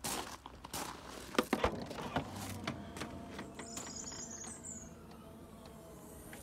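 Audi S6 Avant's power tailgate opening: a few sharp clicks as the latch releases, then the steady hum of the tailgate motor as it lifts, stopping near the end.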